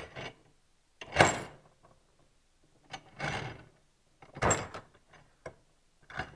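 Spring compressor tool being backed off and lifted from a Ski-Doo P-drive snowmobile clutch: a handful of short metal scrapes and clunks with a few sharp clicks, the loudest about a second in.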